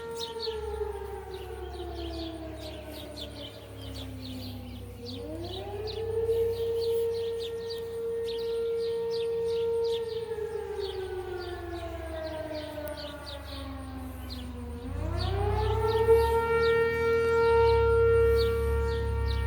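Fire siren sounding on its test, wailing: its pitch slides slowly down over several seconds, climbs back in about a second and holds, slides down again, and climbs back up near the end.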